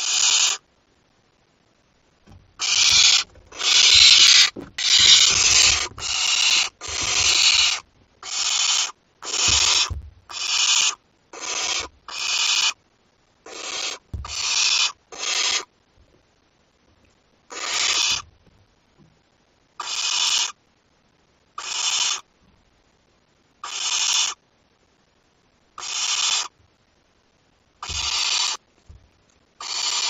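Barn owl chicks giving their begging hiss calls: a quick run of harsh hisses about one a second, then, after a short lull just past halfway, one hiss every two seconds or so.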